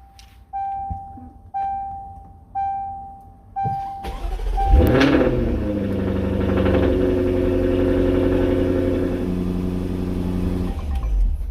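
Jaguar F-Type R's supercharged V8 started on a freshly fitted lightweight Antigravity battery: the car's warning chime sounds about once a second, then the engine cranks, catches about five seconds in with a rev flare, and settles into a steady idle until near the end. It fires readily on the new battery.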